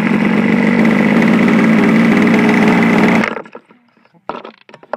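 A model airplane's motor running right beside the microphone at a steady pitch, cutting off suddenly about three seconds in.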